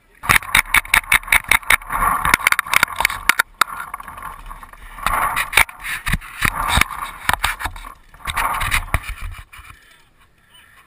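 Tippmann X7 paintball marker firing fast strings of shots, about five to six a second for the first three seconds, then single shots and short strings a few seconds later.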